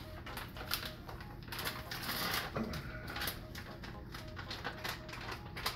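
Plastic bag of frozen raspberries crinkling and rattling as it is handled and opened: a quick, irregular run of clicks, with a louder rustle about two seconds in.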